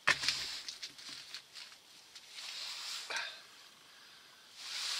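Rustling and soft clicking handling noise as a caught whitefish is taken out and held up, with a sharp bump just after the start.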